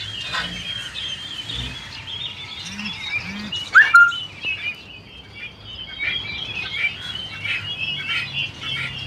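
A flock of small caged birds chirping and chattering continuously, with one loud, sharp rising call about four seconds in.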